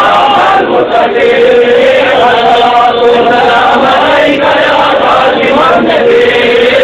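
Male voice chanting a devotional recitation in long, drawn-out melodic phrases.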